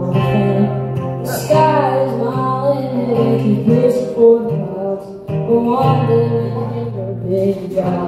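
A boy singing a melody while accompanying himself on an acoustic guitar.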